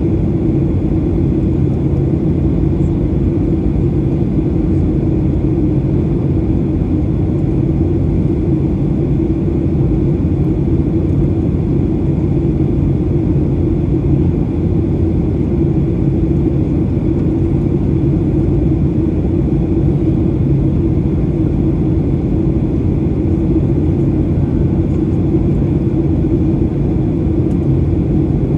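Steady cabin noise inside a Boeing 737-800 in flight: rushing airflow over the fuselage and the drone of its CFM56-7B turbofan engines, with a steady low hum throughout.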